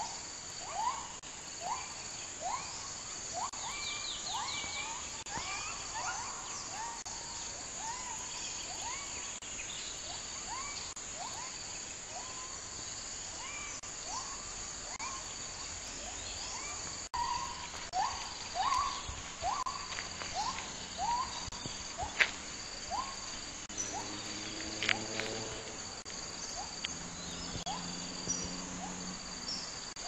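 Gibbons (Hylobates) calling from the rainforest canopy: a long series of short hooting notes, about one a second, each sliding upward in pitch. Behind them runs a steady high buzz of insects.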